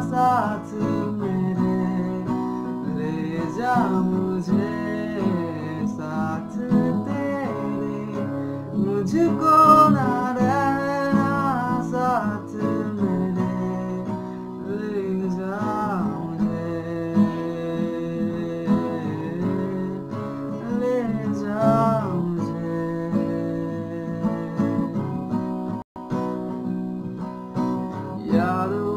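A man singing a Hindi song, accompanying himself by strumming an acoustic guitar. The sound cuts out for an instant near the end.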